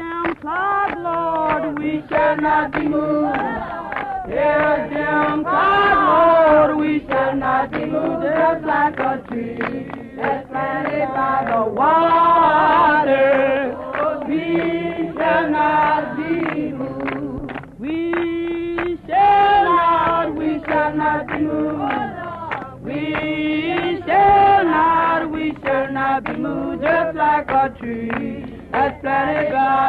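A choir singing a song, voices holding long notes; a civil rights freedom song used as the soundtrack.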